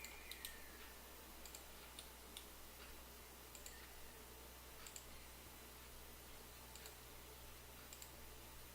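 Computer mouse clicking now and then, a dozen or so short, irregular clicks over a faint steady electrical hum.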